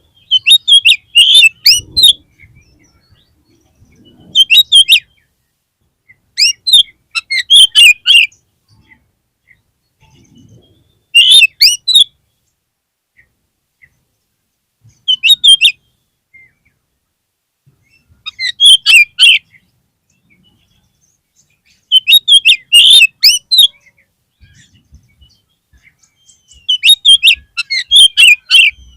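Oriental magpie-robin singing in short bursts of fast, varied, high whistled notes: about nine phrases, each a second or two long, with pauses between. It is a lure song of the kind played to rouse a captive male magpie-robin into answering.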